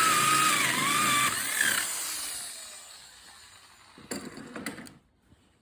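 Power drill driving a hole saw through wood, the motor whine wavering with the load, then released and winding down over a couple of seconds. A few short knocks follow about four seconds in.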